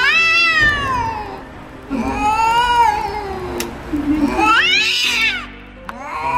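Cats yowling (caterwauling) at each other in an aggressive standoff: three long, drawn-out howls, each rising and then falling in pitch, with another starting near the end.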